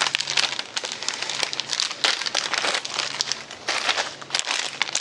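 Plastic snack bags crinkling and rustling as they are handled and lifted out of a plastic shopping basket: a dense, irregular run of crackles with no pause.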